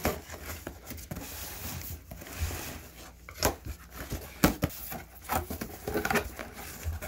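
Shipping box being opened by hand: packing material crinkling and rustling, with scattered sharp clicks and knocks, the loudest about four and a half seconds in.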